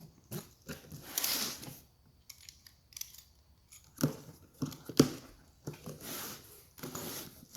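Cardboard box being opened and handled: cardboard scraping and rustling, with two sharp knocks about four and five seconds in, the second the loudest.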